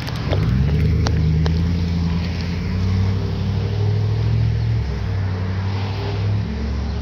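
A motor vehicle engine running close by, its pitch rising about half a second in and shifting up and down a few times, like a vehicle pulling away through its gears.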